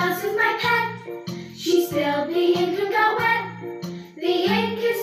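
A young girl singing a children's phonics song over a bouncy backing track, its low bass notes changing about twice a second.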